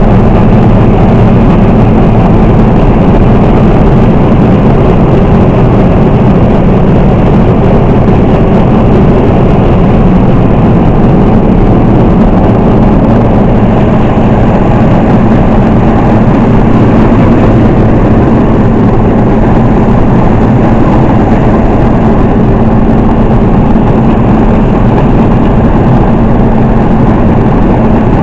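Laverda M305 combine harvester running while cutting and threshing barley: a loud, constant drone of engine and threshing machinery that keeps an even pace throughout.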